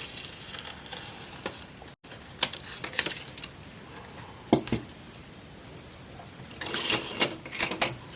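Scissors snipping paper on a work table: a couple of single sharp clicks, then a quicker run of snips and scrapes near the end.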